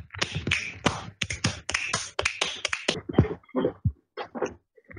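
Beatboxing: a man makes rapid mouth clicks, pops and hissing hi-hat sounds in a dense run for about three seconds. The run then thins into scattered pops and short vocal sounds.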